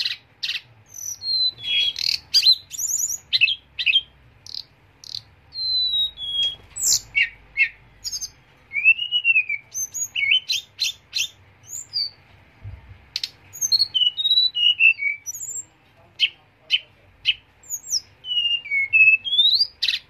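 Caged tledekan gunung, a blue-and-orange songbird, singing a sharp, varied song. Clear whistled notes and slurred glides are mixed with fast rattling trills and quick upswept notes, delivered in rolling phrases with brief pauses.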